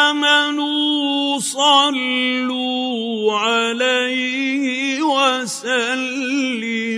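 Solo melodic Quran recitation (tajweed): one voice holding long, ornamented notes that waver up and down, broken by two brief pauses, about a second and a half in and again past five seconds.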